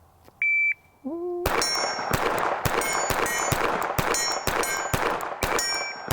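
A shot-timer beep, then a SIG P365 pistol with a compensator fired rapidly at a steel plate: about a dozen shots at roughly half-second intervals, each hit answered by the steel's high ringing.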